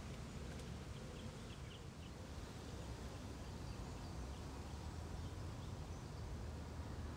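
Quiet outdoor ambience: a steady low background rumble with a few faint bird chirps, a short cluster about a second in and scattered ones later.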